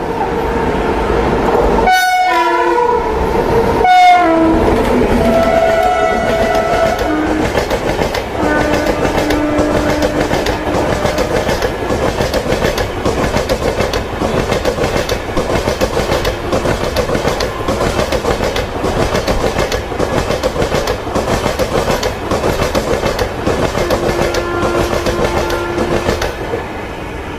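Indian Railways passenger train with LHB coaches passing close by. Its horn sounds over the first several seconds, then the wheels clatter rhythmically over the rail joints as the coaches go by.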